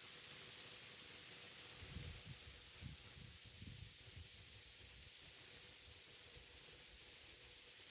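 Near silence: a faint steady hiss, with a few soft low bumps about two to four seconds in.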